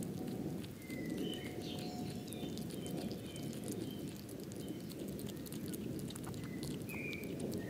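European hedgehog chewing and smacking on food, a fast run of wet clicks and crunching. A bird chirps faintly a few times.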